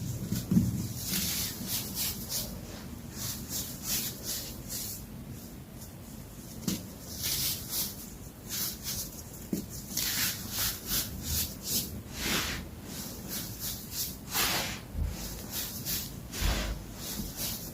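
Compressed baking soda being crushed, giving a quick run of short, crisp crunches, several a second, with brief pauses between clusters.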